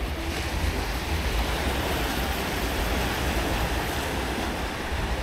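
Steady wash of sea surf with wind buffeting the microphone, a fluctuating low rumble under an even hiss.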